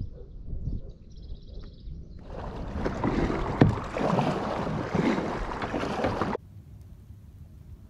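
Kayak paddle strokes splashing through the water for about four seconds, with one sharp knock among them, then an abrupt cut to quiet. Before the paddling, low rumbling with a brief high chirping.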